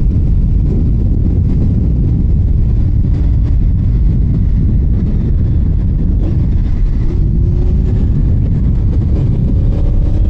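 Honda VFR800's V4 engine running while the motorcycle is under way, under a loud low rush of wind and road noise. The engine note climbs a little a few times in the second half.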